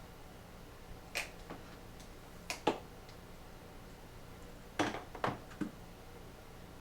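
Handling of parts inside a hard plastic tool box: about six short, sharp knocks and clicks, the loudest ones near the middle and about two-thirds of the way through.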